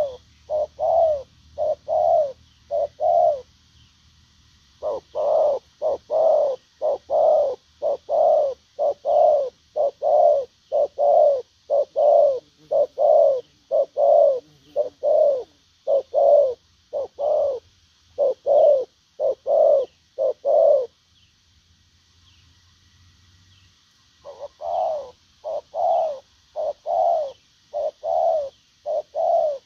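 Spotted dove cooing in a long run of evenly spaced coos, about one and a half a second. The run breaks off briefly near the start and again for a few seconds about two-thirds through.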